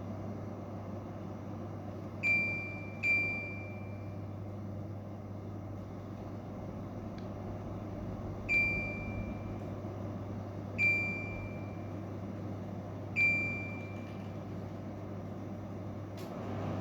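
LG ICE Series electric fan beeping from its controls: five short high beeps, each dying away quickly. Two come close together about two seconds in, then three more a couple of seconds apart from about eight and a half seconds in. Under them runs the steady hum and air noise of the running fan, and there is a single click just before the end.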